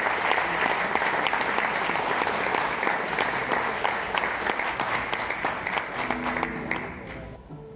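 Theatre audience applauding, a dense patter of clapping that fades away near the end as a few plucked guitar notes begin.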